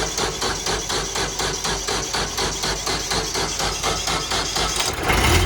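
Kubota B2710's three-cylinder diesel engine cranking over on the starter in rhythmic pulses, about four or five a second, then catching and starting to run near the end.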